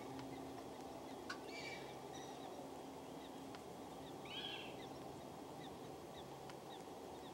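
Faint, high animal calls over a quiet outdoor background: a couple of short calls near the start, one that rises and falls about four and a half seconds in, and a few tiny chirps between, with a faint click about a second in.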